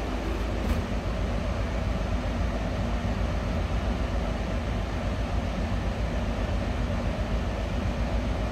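Steady low rumble of a ship's engines and machinery heard from inside the vessel, with a faint steady hum over it.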